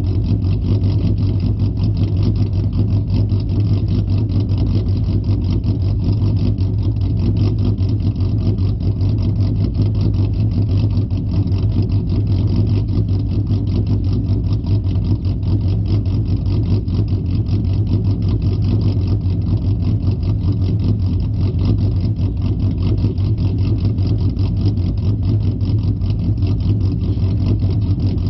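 2008 Ford Mustang's 4.0-litre SOHC V6 idling through a loud exhaust: a steady, even low drone with a fast regular pulse and no revving.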